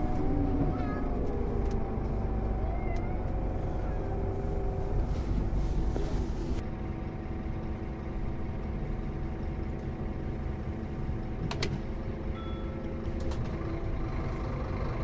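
Scania Citywide Interurban bus heard from inside the cabin: the engine note falls as the bus slows, then the engine runs steadily at a lower level as the bus stands. A sharp click and a short high beep come about twelve seconds in.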